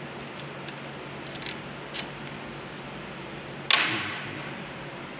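Small metallic clicks of a hex key working bolts on a lathe's cross slide, then one loud metal clank about three and a half seconds in that rings briefly as it dies away, as a loose steel part is set down.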